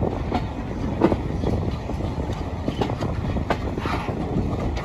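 Passenger carriages of a moving train running over jointed track and pointwork: a steady rumble with irregular clicks and knocks from the wheels, the sharpest about a second in.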